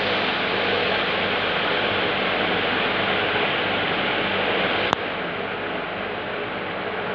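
Steady hiss with a low hum from aquarium aeration: an air pump feeding air stones. About five seconds in there is a single sharp click, after which the hiss is a little quieter.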